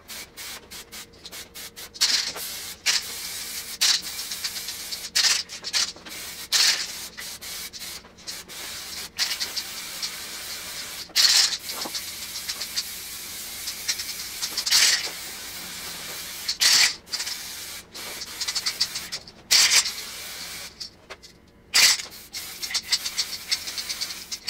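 Aerosol can of DuraBlue two-part gun coating spraying in short hissing bursts, many in a row, as a heavy wet final coat goes on.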